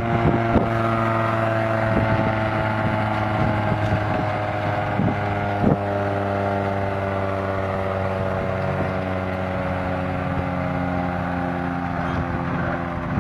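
Tractor engine running steadily under load, driving a rear-mounted crusher, its pitch sagging slowly. A few sharp knocks cut through, the loudest about six seconds in.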